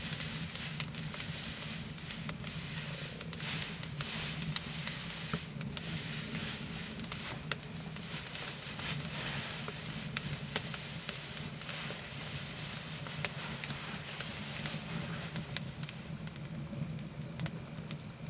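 Fire crackling with frequent sharp pops, and dry straw rustling as it is spread out and lain on.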